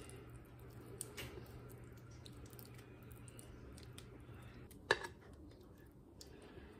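Faint, soft squishing and scraping as a spatula pushes thick ricotta filling out of a glass bowl into a pie crust, with one sharp tap about five seconds in.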